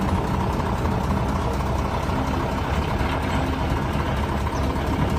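Heavy truck engine running steadily: a loud, even, low engine noise.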